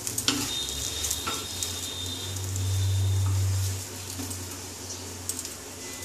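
Oil sizzling in a hot frying pan while a metal spatula clicks and scrapes against the pan, lifting out a folded dosa. A loud low hum swells in the middle for about a second and a half.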